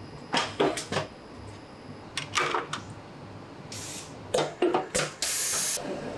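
Metal clacks from small press tooling stamping and forming fountain pen nibs, in quick groups of two or three strokes. A short hiss comes just before the middle, and a longer, louder hiss comes near the end.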